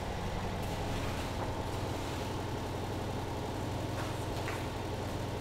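A motor running steadily with a low, even hum, the sound of pumps at work clearing flood water. A few faint clicks over it.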